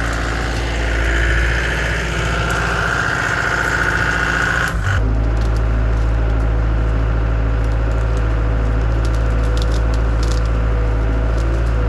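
Caterpillar 252B skid steer's diesel engine running as the machine drives, with a higher whine over the first few seconds, then an abrupt change about five seconds in to a steady engine note.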